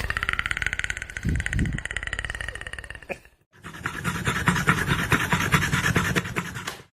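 A dog panting fast, in two stretches with a short break about three seconds in.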